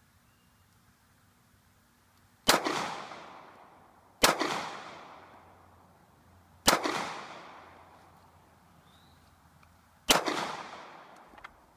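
Four single gunshots at uneven intervals, the last after a longer pause. Each is followed by an echo that fades over a second or so.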